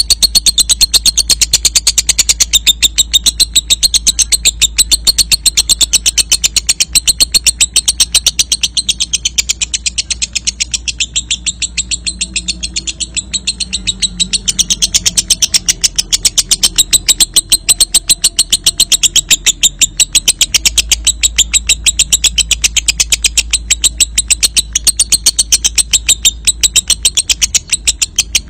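Lovebird singing a long 'ngekek': a fast, even chattering trill of high-pitched notes that runs on without a break. A low steady hum sits underneath.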